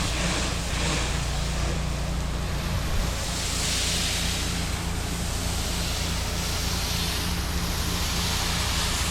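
Pressure washer running: a steady engine hum under the hiss of the wand spraying a downstream mix of soap and sodium hypochlorite onto a house, the hiss swelling a couple of times as the spray sweeps across the siding.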